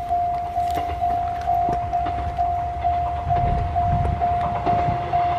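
Japanese railway level-crossing warning bell ringing at an even pace of about two dings a second. Under it, the low rumble of an approaching electric train grows in the second half.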